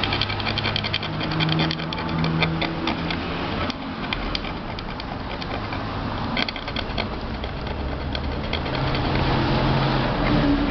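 A small metal blade scraping rust and old grime from around the valve hole of an aluminium pressure cooker lid, cleaning the valve seat after the old valve was taken out: quick, irregular scratchy strokes of metal on metal. A steady low hum runs underneath.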